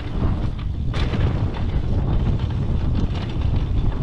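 Wind buffeting the microphone of a riding mountain biker's camera in a steady rumble, with several sharp knocks and rattles from the bike over rough trail, the clearest about a second in.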